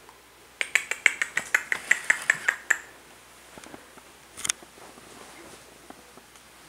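A rapid run of sharp clicks made by a person, about six a second for roughly two seconds, then one more click a little later: attention-getting clicks at a Caucasian shepherd puppy.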